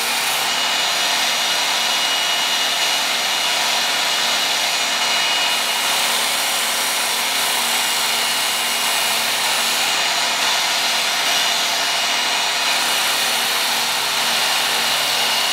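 Work Sharp Ken Onion Edition electric belt sharpener running steadily, its abrasive belt grinding steel off a bushcraft knife's edge as the blade is worked against it. The grinding removes a lot of metal to bring the convex bevel down to the apex.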